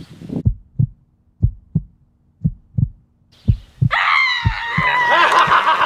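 Heartbeat sound effect: four low double thumps, about one a second. About four seconds in, a loud, sustained high-pitched sound with wavering tones takes over.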